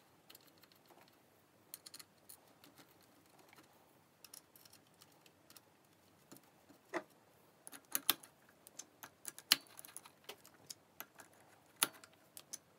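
Scattered small metallic clicks and taps from handling the timing chain and sprockets on the Fiat 126 engine case, coming more often in the second half.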